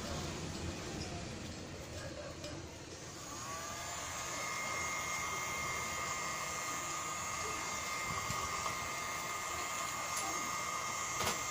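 Hot-air heat gun switched on about three seconds in: its fan motor spins up and then runs with a steady, even whine and rush of air. A short click near the end.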